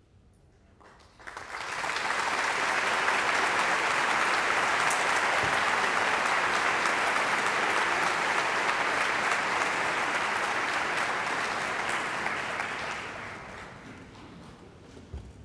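Audience applauding: the clapping swells up about a second in, holds steady, and dies away near the end.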